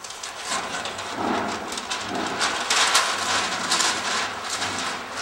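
A large paper flip-chart sheet being lifted and folded back over the top of the pad: a long run of paper rustling and crackling lasting several seconds.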